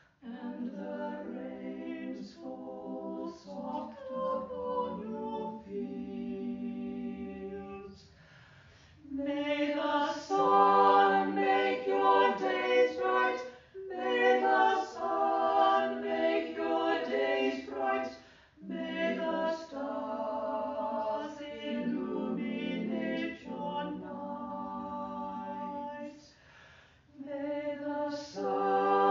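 Unaccompanied choir singing, held chords in phrases broken by short pauses.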